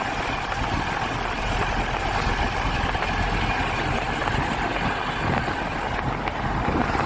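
Steady engine and road noise of a moving vehicle, heard from on board: an even low rumble with a rushing hiss.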